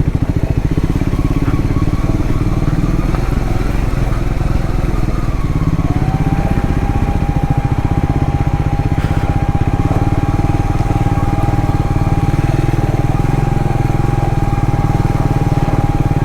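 Triumph Scrambler 400X's single-cylinder engine running steadily at low road speed. A thin, steady whine joins in about six seconds in.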